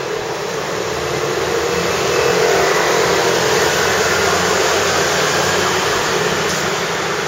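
A motor running steadily, cutting in abruptly from silence.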